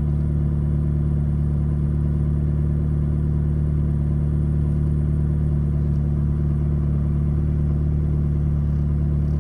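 McLaren 12C's twin-turbo V8 idling steadily, a constant low hum with no change in pitch.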